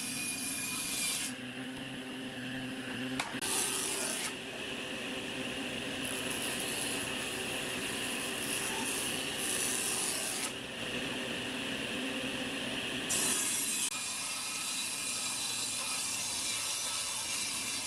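Combination woodworking machine running, with pine boards fed across its jointer cutterhead. The cutting hiss rises and falls in several passes, about four times.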